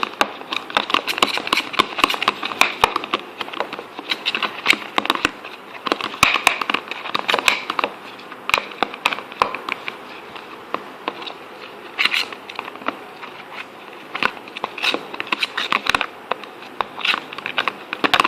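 Slime mixture of clear glue and liquid soap being stirred in a container, giving a dense, continuous run of sticky clicks and crackles.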